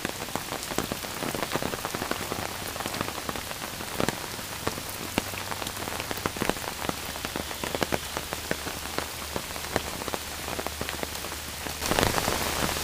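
Heavy tropical-storm rain falling steadily, with many close raindrop hits ticking through it. It grows louder about a second before the end.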